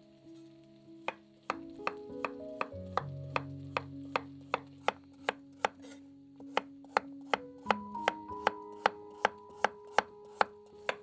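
Chef's knife slicing carrots into rounds on a wooden cutting board: crisp, even chops at about three a second, starting about a second in. Soft background music plays underneath.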